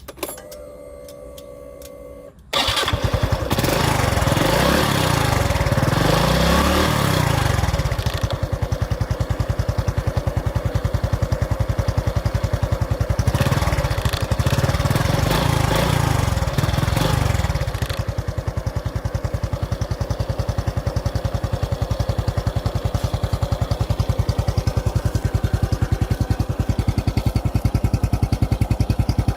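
Honda Wave 110i motorcycle's single-cylinder four-stroke engine starting. After a faint steady whine, it catches suddenly about two and a half seconds in, is blipped up and down a few times, blipped again a little later, and then settles to a steady idle.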